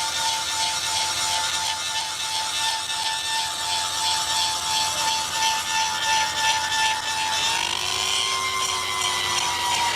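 Machinery running with a steady high whine over a broad rushing noise; the whine rises a little in pitch about three-quarters of the way through.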